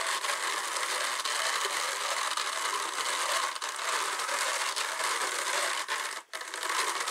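Hand-cranked drum carder turning steadily as wool is fed onto its licker-in drum: a continuous mechanical whir with fine rapid clicking from the drive and the wire carding cloth. It stops for a moment about six seconds in, then carries on.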